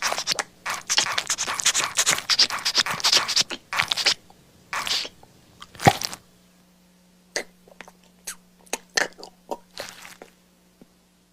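Someone eating: wet crunching and chewing, dense for about four seconds, then a few louder bites and scattered smacks that thin out near the end, over a faint steady hum.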